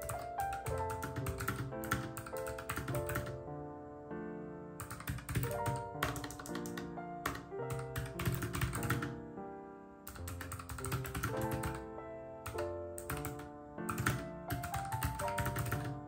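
Fast typing on a compact low-profile keyboard: quick runs of keystroke clicks broken by brief pauses, over background music.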